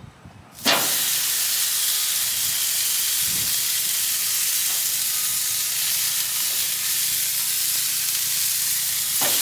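A ribeye steak laid on hot gas-grill grates sizzling: the sizzle starts suddenly about half a second in and holds as a steady hiss. Near the end a second steak goes down and the sizzle gets louder.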